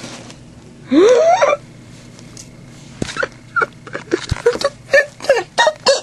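A person's wordless cry of excitement, rising in pitch, about a second in. From about three seconds it is followed by a quick run of short whimpering, giggling gasps, two or three a second, with a couple of dull knocks from handling.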